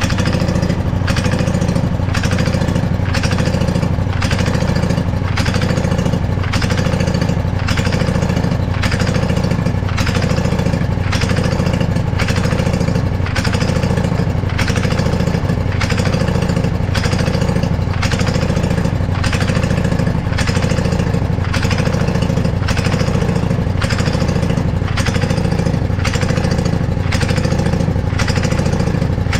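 Husqvarna riding mower engine running and surging, its sound swelling and falling back about once a second. The surge comes from a carburetor that is out of tune, and the mixture screw is being adjusted to settle it.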